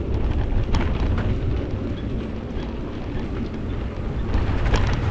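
Wind buffeting the microphone during a bike ride: a steady low rumble, with a few sharp clicks about a second in and again near the end.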